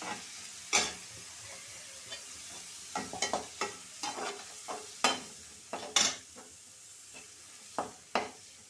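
Perforated metal spoon stirring soaked chana dal in a hot kadhai: irregular scrapes and clacks of metal on metal over a sizzle of frying oil.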